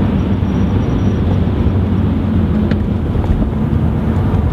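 A BMW 118d's four-cylinder diesel engine running at a steady pace as the car drives at speed, heard from inside the cabin together with tyre and wind noise, a continuous low drone.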